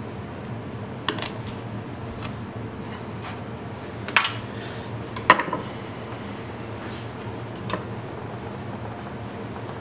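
A boning knife clicking and knocking against a plastic cutting board as a quail is cut from its bones: four or so short, sharp knocks, the loudest about halfway through, over a steady background hum.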